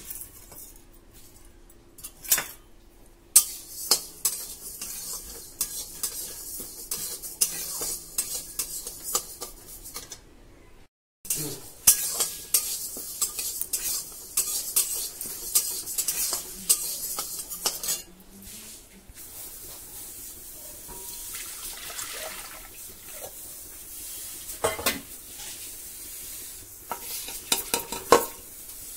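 A metal spatula stirs and scrapes dry moong dal around an iron kadai as it roasts, a dense rapid scratching with clinks of metal on metal. After a brief gap the stirring starts again and stops about two-thirds of the way in. A quieter steady hiss follows, with a few sharp clinks near the end.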